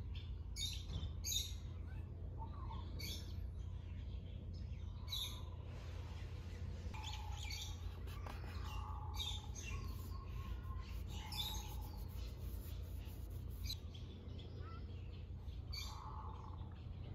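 Small birds chirping and tweeting in short, repeated calls, over a steady low background hum.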